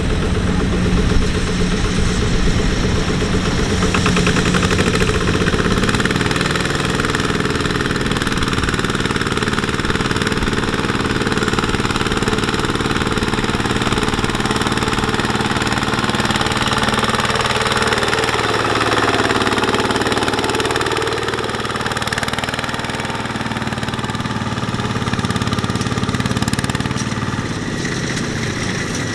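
Kubota ZT155 walking tractor's single-cylinder diesel engine running steadily while pulling a trailer loaded with rice sacks through mud. Its note sags slowly and picks up again about two-thirds of the way through.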